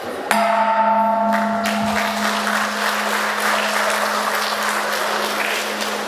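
A ringing musical chord starts suddenly a moment in and fades over about two seconds, while audience applause fills the rest, over a steady low hum.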